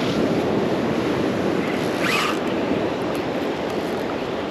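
Steady rushing noise of wind and water on the microphone, with one short, higher sliding sound about two seconds in.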